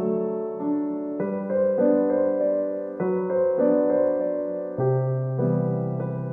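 Background music played on a keyboard or piano: gentle sustained chords, a new chord or note coming in every half second or so.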